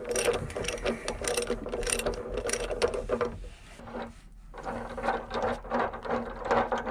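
Half-inch ratchet clicking rapidly as a 27 mm socket and extension spin a loosened water-heater anode rod out of its threads, pausing briefly a little past the middle before clicking on again.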